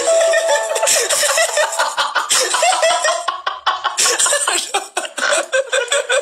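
Men laughing loudly, in short choppy bursts.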